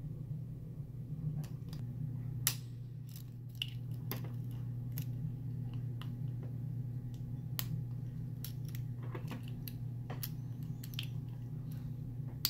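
Irregular small metallic clicks of a lock pick and tension wrench working the security pins of a Master Lock A22 lockout padlock, over a steady low hum.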